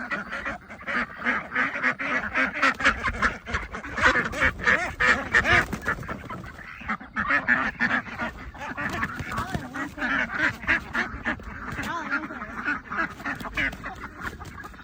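Farm poultry calling: many loud, overlapping calls that go on without a break.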